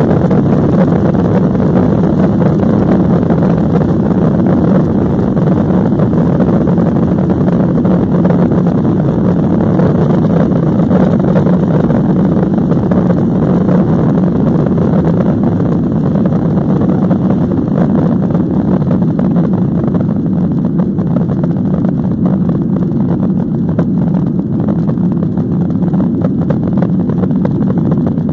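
Boeing 737 jet engines heard from inside the cabin during takeoff: a loud, steady low roar through the takeoff roll and liftoff. The upper hiss eases slightly in the last third as the plane climbs away.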